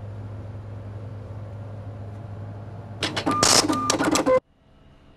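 A steady low hum, then about a second and a half of loud mechanical clattering with two short beeps, cut off abruptly.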